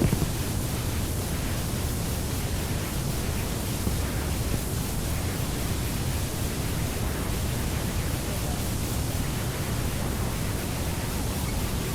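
Steady, unbroken wash of hiss-like noise with a strong low rumble, an electronic or concrète noise texture in a piece of experimental library music.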